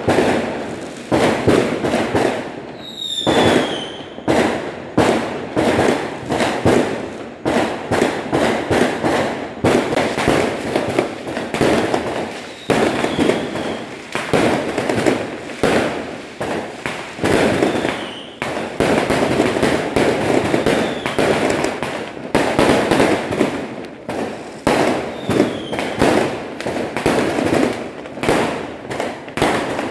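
Fireworks going off in a continuous barrage of bangs and crackles that come in surging clusters. A short falling whistle sounds about three seconds in, and a few fainter ones follow later.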